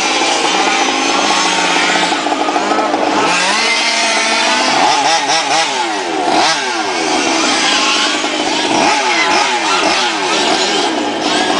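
Several radio-controlled model race cars running together, their small motors revving high, with pitches sweeping up and down in overlapping waves as the cars accelerate and slow.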